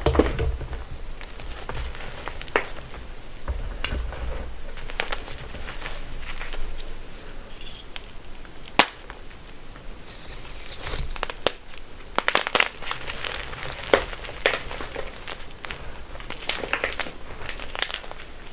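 Blocks of gym chalk being crushed, crumbling with dry crackles and sharp snaps, most densely about twelve seconds in.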